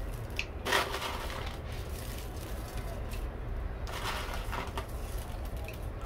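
Chopped leek being scattered by hand onto mashed cassava in a metal bowl: a few soft rustles and pats, the clearest about a second in and again near the four-second mark, over a steady low hum.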